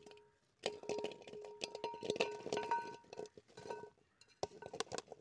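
Chunks of peeled tapioca (cassava) dropped by hand into an aluminium pot: a quick run of knocks and clatter with the pot ringing, thinning out to a few last knocks near the end.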